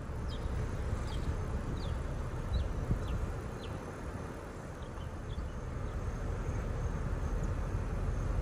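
A car rolling slowly along a paved lane, heard as a low steady rumble of engine and tyres that builds slightly near the end. Over it, short high falling chirps repeat every half second or so for the first six seconds.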